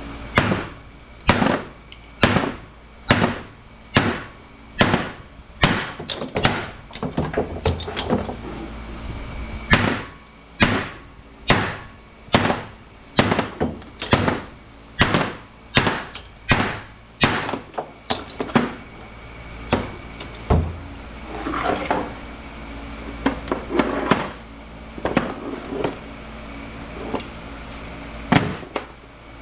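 Hammer blows on scrap light-fixture transformers, struck hard over and over at a little under one a second, with a short break past the middle and some lighter clanking, cracking the transformers apart.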